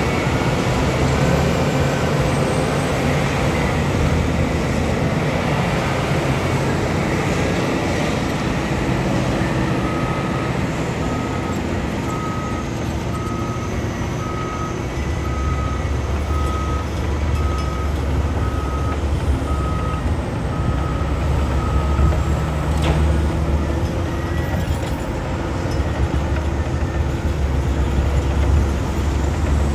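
Heavy mining machinery running: the diesel engines of a large excavator and a dump truck, a steady rumble that deepens and grows louder about halfway through. In the middle, a reversing alarm beeps about once a second for roughly twelve seconds.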